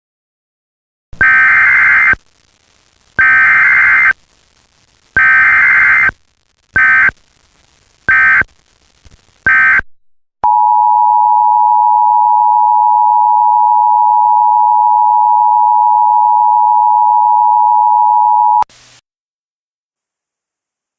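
Emergency Alert System broadcast tones. First come three loud, warbling SAME data bursts of about a second each, then three shorter bursts. Then the steady two-tone EAS attention signal sounds for about eight seconds and cuts off abruptly.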